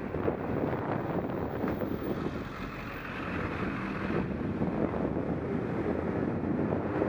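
Wind rushing over an action camera's microphone as a bicycle rides at speed, mixed with the steady noise of car traffic driving alongside.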